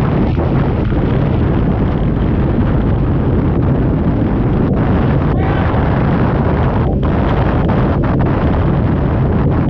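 Twin big-block V8 engines of a 1997 29-foot Fountain step-hull powerboat running steadily at cruising speed, under a loud, dense rush of wind and water.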